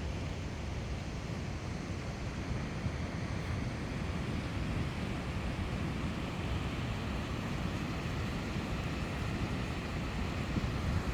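Steady rushing of a mountain stream, with wind buffeting the microphone.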